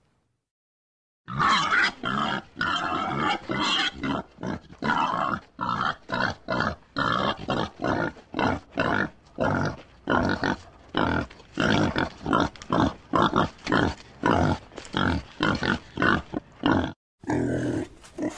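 Pig grunting over and over in short, quick grunts, about two or three a second, starting after a second of silence. A brief break near the end leads into another recording of pig sounds.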